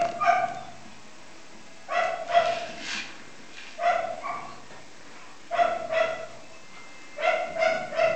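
Poodle giving short, high yips in groups of two or three, about every two seconds.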